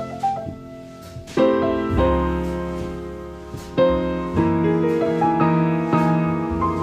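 Background music led by piano: sustained chords and notes struck every second or so, with a louder chord about a second and a half in.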